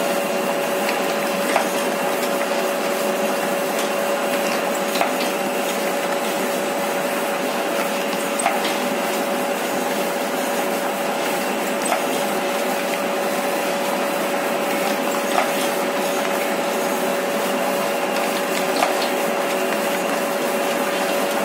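Single-die paper plate making machine with a 12-inch die running: a steady motor hum with a constant tone, and a short knock about every three and a half seconds as the ram brings the die down on a foil paper plate.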